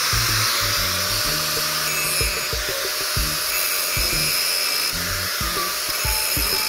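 Angle grinder cutting into a metal chain: a steady, harsh grinding hiss, over background music with a low bassline.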